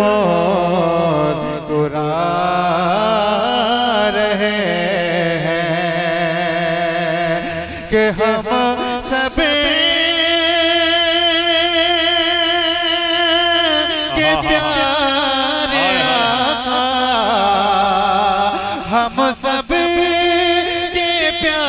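A man singing a naat into a microphone, with no instruments: long, drawn-out notes with a wavering, ornamented pitch, broken by a few short breaths.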